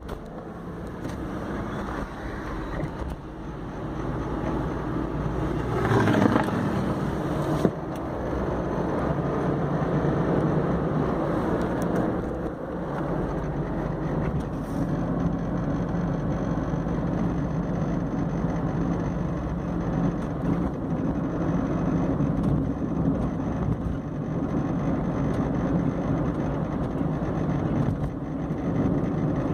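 Honda Insight driving in gear: steady engine and road noise with a grinding, squeaking whine from the front engine bay that sounds like a cheap computer case fan. There is a louder rush about six seconds in. The noise comes with the car in gear between about 1500 and 2500 rpm and under load, and its source is hard to pinpoint.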